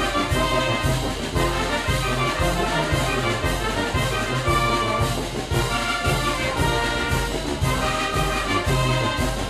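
Oaxacan wind band (banda filarmónica) playing a son y jarabe: trumpets and trombones carry the tune over a steady beat and low bass notes.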